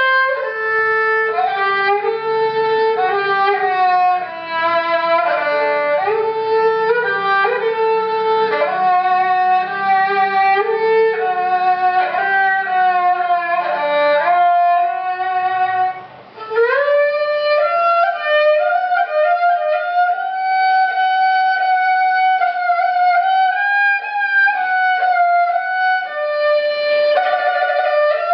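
Newly made klasik kemençe (Politiki lyra), a bowed three-string lute with a maple body and cedar soundboard, played solo with the bow: a melody of quick note changes, a brief break about 16 seconds in, then slower, longer held notes.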